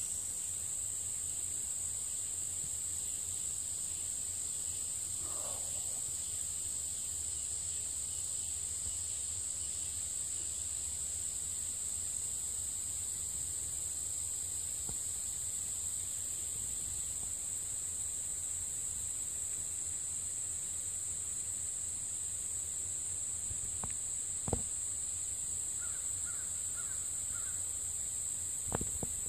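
Steady high-pitched drone of insects calling in the trees, with a faint short call about five seconds in, a few faint chirps near the end, and two sharp knocks near the end.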